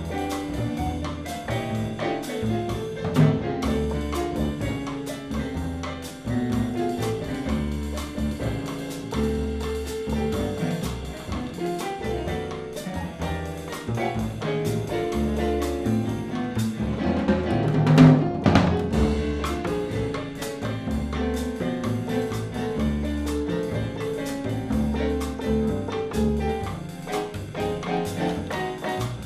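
Live jazz with a Yamaha digital piano playing chords over repeated low bass notes and light drums. The tempo stays steady, with one louder accent about eighteen seconds in.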